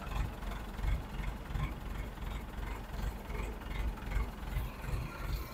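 An engine running at low speed: a low, uneven rumble with faint regular ticks above it.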